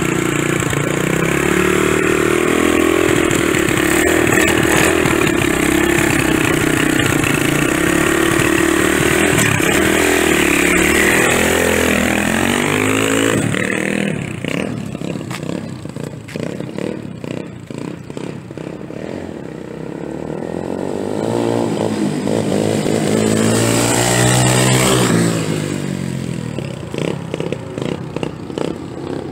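Apollo DB-36 250cc dirt bike's four-stroke single engine running close up, then revving higher as the bike pulls away about twelve seconds in. It drops to a more distant note, swells louder with its pitch sweeping up and down about twenty-two seconds in as it rides back past, and fades again.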